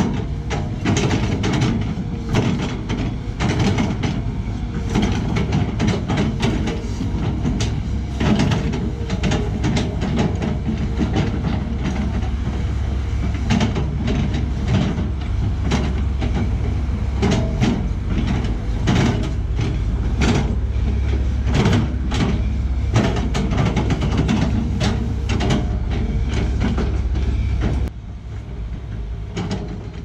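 Sany SY215C excavator's diesel engine running steadily under load, with frequent clanks, knocks and scrapes as its bucket works soil and stones on the slope. The sound drops noticeably quieter near the end.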